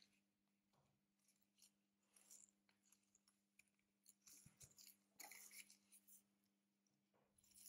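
Faint, scattered small clicks and scrapes of repair tools handling a Samsung Galaxy S9, busiest about five seconds in, over a low steady hum.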